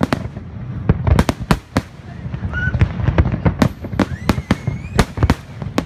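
Fireworks display: aerial shells bursting in quick, irregular succession, many sharp bangs over a low rumble. A thin whistling tone glides through the middle.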